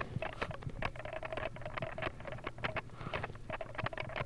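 Handling noise close to the microphone: a rapid, irregular run of clicks and rubbing as the recording device is gripped and moved about.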